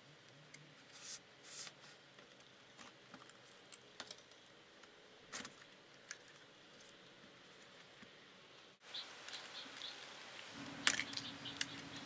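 Faint, scattered clicks and scrapes of a putty knife prying the plastic bottom cover off a Mac mini, with busier handling noises near the end.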